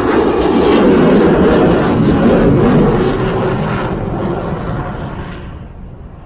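F/A-18 Hornet twin jet engines in a flyby: a loud rushing jet noise that is strongest for the first three seconds or so, then fades away as the jet passes.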